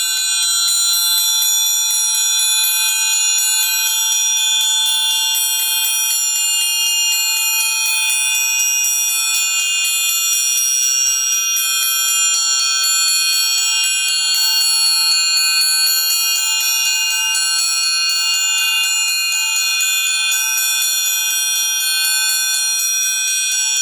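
Amplified orchestral triangle struck in a fast, unbroken roll, giving a dense, steady shimmer of many high ringing overtones.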